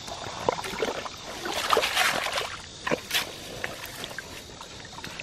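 Wet tidal mud squelching and sloshing as a gloved hand digs into a water-filled hole, with a burst of sharp wet crackles and clicks about halfway through, then quieter small ticks.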